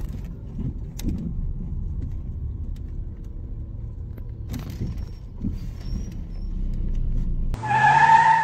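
Low, steady rumble of a car running, with a few faint clicks. Near the end it gives way abruptly to a short, louder tone with several pitches at once, which cuts off suddenly.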